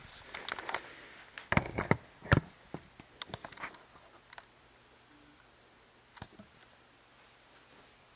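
A run of light clicks and knocks as a digital multimeter and its test leads are handled and set in place, busiest in the first half, then quiet with a single click about six seconds in.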